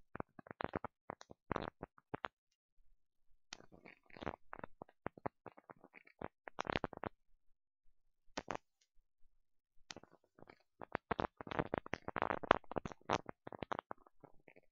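Computer mouse and keyboard clicking: short, sharp clicks in irregular clusters, with gaps of silence between them.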